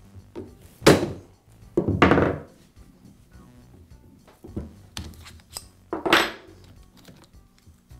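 Two sharp mallet blows on an Allen wrench clamped in the chuck of a Makita XPH06 cordless hammer drill, about a second apart, the second one ringing; the blows break the reverse-threaded chuck free of the spindle. Faint clicking follows as the loosened chuck is spun off by hand, then a ringing knock near the end as a tool is set on the wooden bench.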